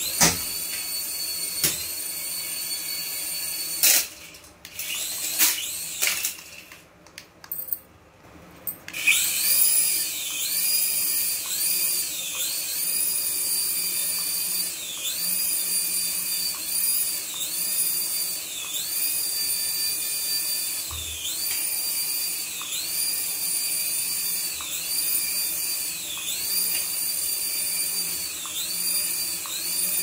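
Small electric rotor motors of a toy RC helicopter whining at a high pitch as it hovers. The whine drops away for a few seconds about four seconds in, with a few clicks, then comes back, its pitch dipping and recovering about once a second.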